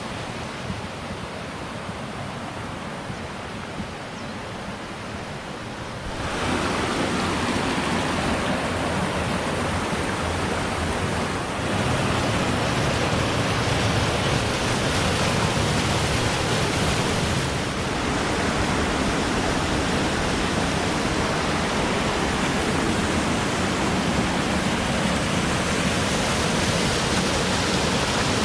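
A high-running mountain stream rushing over rocks, a steady wash of water noise that gets louder in two steps, about six and about twelve seconds in.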